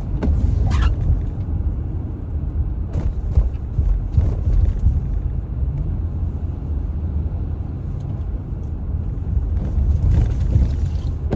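Steady low rumble of a car's engine and tyres heard from inside the moving car, with a few brief thumps.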